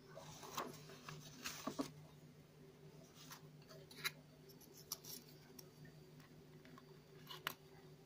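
Faint clicks, taps and light rustling of press-out card puzzle pieces being handled and pushed together, a handful of sharp clicks spread through, over a steady low hum.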